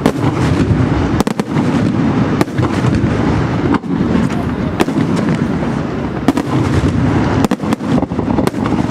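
Fireworks display at full intensity: a dense, unbroken barrage of shell bursts, continuous low rumbling booms with frequent sharp cracks on top.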